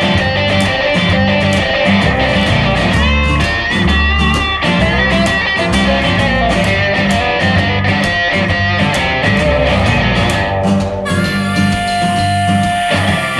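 Background rock music in an instrumental break: guitar over a steady drum beat. About 11 seconds in, the cymbals drop out and a single guitar note is held for about a second.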